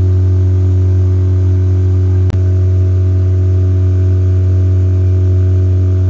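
A small open motorboat's engine running steadily at speed, a loud, even drone with a low hum that does not change. A brief click a little over two seconds in.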